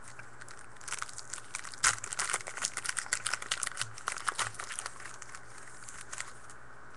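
Foil trading-card pack wrapper being torn open and crinkled by hand, a dense run of sharp crackles that stops near the end.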